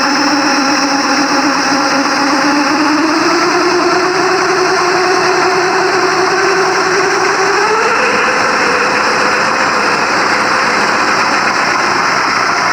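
Simulated engine sound from the FMS RC car's sound module, its engine note stepping up in pitch about three seconds in and again near eight seconds, over a steady high whine.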